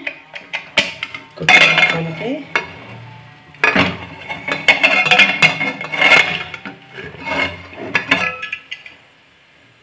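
Aluminium pressure cooker lid being worked open and lifted: metal scraping and clinking in two longer stretches, with many sharp clicks, dying away in the last second.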